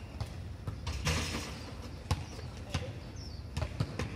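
Scattered dull thuds and taps at an uneven pace, like a ball bouncing or feet landing on hard ground, with a few short falling bird chirps.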